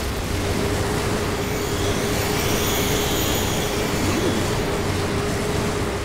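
Cartoon sound effect: a steady rushing, rumbling noise with a constant hum under it, like wind or a running machine.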